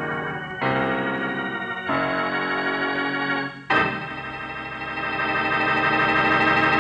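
Organ music bridge: a few held chords, each changing after a second or so, then a final long chord that swells louder.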